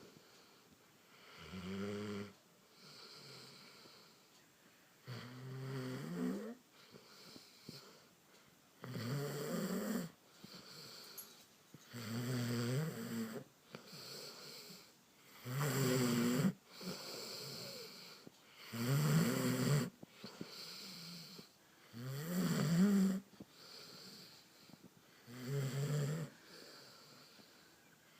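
Snoring: eight pitched snores, each about a second long, one roughly every three and a half seconds, with a softer breathy sound between them.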